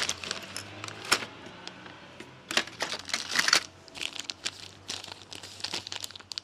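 Packaging crinkling and rustling with irregular sharp clicks as someone rummages through parts by hand, in uneven bursts that are loudest about a second in and again around three seconds in.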